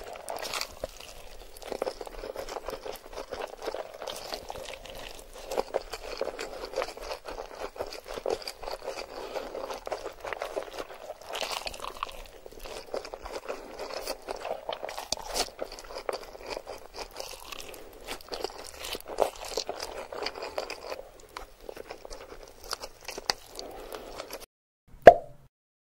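Close-miked mukbang eating of spicy noodles: wet slurps of noodles drawn in with chopsticks and steady chewing with sticky mouth clicks. Near the end the eating stops and one short, loud burst sounds.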